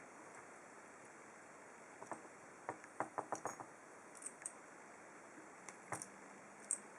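Faint sharp clicks and taps of small metal parts and tools being handled while a pin-tumbler padlock core is taken apart: a quick run of clicks about two to three and a half seconds in, then a few single clicks.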